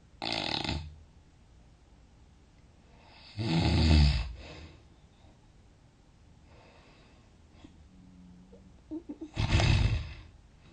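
A sleeping person snoring loudly: three snores a few seconds apart, the middle one the loudest, with faint breathing between them.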